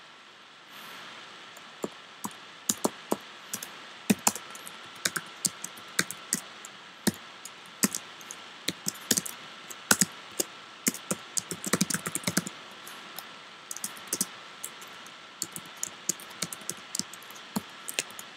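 Typing on a computer keyboard: irregular keystroke clicks in quick runs with short pauses, thickest about twelve seconds in, over a faint steady hiss.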